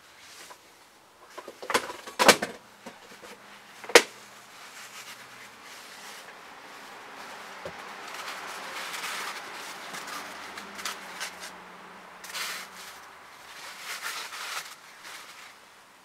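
African grey parrot moving about in its cage: a cluster of sharp clicks and knocks about two seconds in and one loud, sharp click at four seconds, then softer noisy scraping sounds in the middle and near the end.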